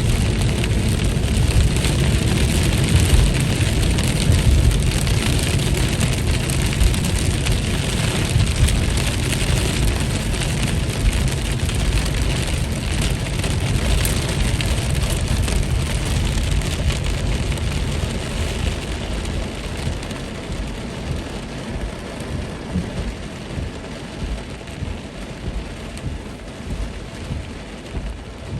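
Heavy rain falling, a dense steady hiss over a deep low rumble. Both the rain and the rumble gradually ease over the last ten seconds or so.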